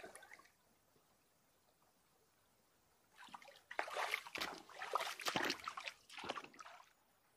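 Rubber boots wading through a shallow river: a run of splashing steps in the water that starts about three seconds in and stops about four seconds later.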